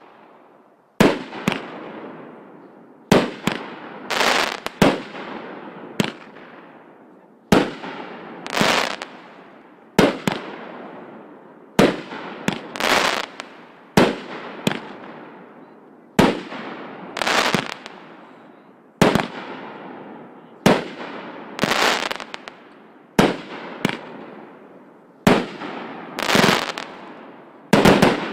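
Bravo Fireworks 'O.B.M.' 500-gram aerial cake firing its 16 shots in sequence: sharp launch reports, each followed about a second later by the bang of the brocade shell breaking overhead. Every break trails off before the next shot.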